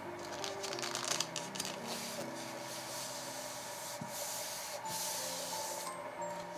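Hands rubbing and smoothing a sheet of book paper flat onto a journal page: a hissing paper-on-paper rubbing in uneven strokes, heaviest about halfway through and easing off near the end. Soft background music plays underneath.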